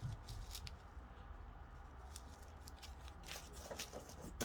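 Small plastic bags of square diamond-painting drills being handled: faint crinkling with scattered small clicks, a few more of them near the end.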